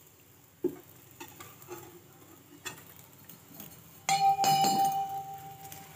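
Light taps and clinks of metal kitchen utensils, then about four seconds in a loud clang of a steel utensil that rings on with a steady tone for nearly two seconds.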